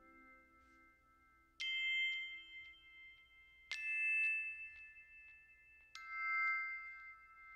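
Background music: three chime-like bell notes about two seconds apart, each ringing on until the next.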